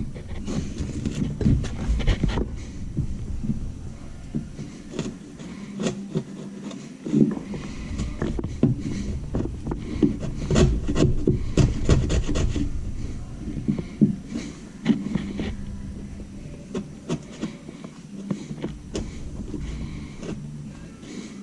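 A chisel paring and scraping wood by hand, cutting a cabinet face frame to fit a new hinge, with irregular scrapes and light taps.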